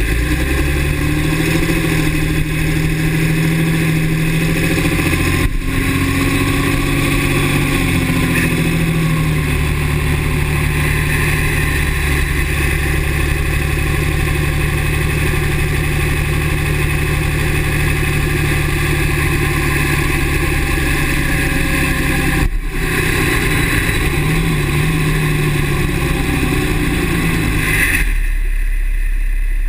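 2009 Dodge Ram's 6.7 Cummins diesel engine running, with a steady high-pitched squeal over the engine note. The owner hears this squeal only with the exhaust brake engaged and thinks it sounds like the turbo.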